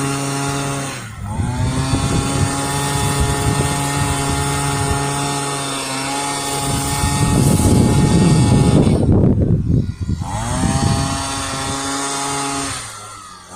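Gas leaf blower fitted with a gutter extension, running at high throttle to blow dry debris out of a gutter and its downspouts. The engine dips and climbs back up twice, there is a louder rushing stretch in the middle, and it throttles down near the end.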